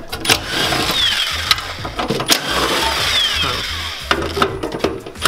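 Cordless power tool running on a bolt in a car's engine bay, undoing it in one steady run of about four seconds before it stops.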